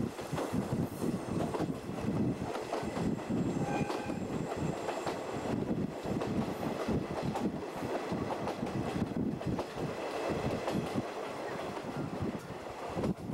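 Ride noise of a locomotive-hauled 50-series passenger coach on the move: a steady rumble with wheels clattering over the rail joints.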